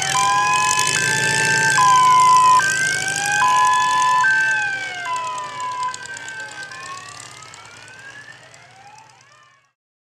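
Electronic siren through roof-mounted horn loudspeakers on a pickup truck, switching between steady high and low notes every second or so, with rising and falling wails sliding between them. It fades away over the last few seconds.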